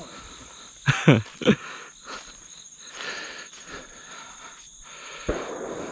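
Steady high-pitched buzzing of field insects. About a second in come two short, loud cries that fall in pitch, and a single thump near the end.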